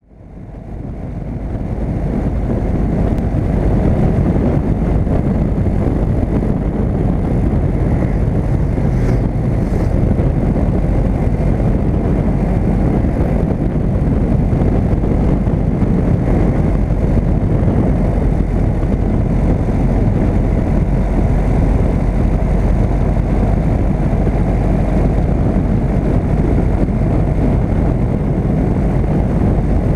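Steady low rumble of a vehicle driving along a road, picked up by a camera mounted low on the vehicle: mixed road, wind and engine noise. It fades in from silence over the first two seconds or so.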